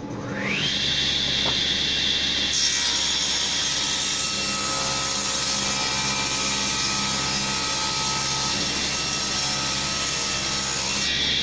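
Table saw starting up, its whine rising as the blade comes up to speed, then ripping a pine board along the fence for about eight seconds. The saw then runs on freely after the board clears the blade near the end.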